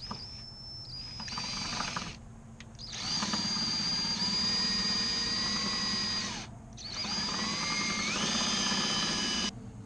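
Power drill drilling out a stripped screw that keeps camming out, its motor whining in four runs, the last one rising in pitch partway through and stopping suddenly near the end.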